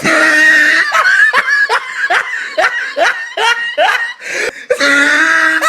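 Laughter in quick repeated bursts, about three a second. A held, steady-pitched cry or blare of about a second comes at the start and again near the end.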